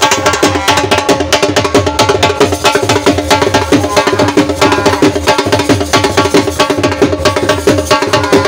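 Music with a fast, steady percussion beat over sustained tones.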